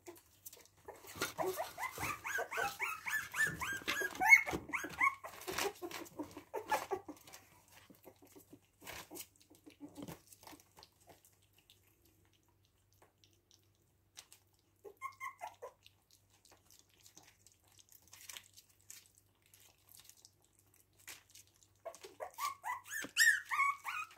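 Puppies about three and a half weeks old whining and squeaking at a food bowl, with small wet clicks of lapping and smacking at the soft food. A dense run of squeals fills the first several seconds, a single brief squeak comes about fifteen seconds in, and more squealing follows near the end.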